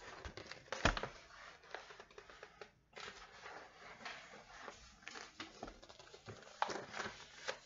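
A large paperback picture book being handled: rustling of paper and cover with scattered light taps and clicks as it is turned around and its pages flipped, with a sharper knock about a second in.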